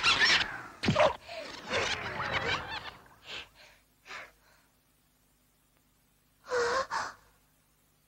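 A cartoon lamb's voice, acted by a person, straining and gasping hard for the first few seconds. It tails off into a couple of faint gasps, then after a pause gives one loud, sharp gasp about six and a half seconds in.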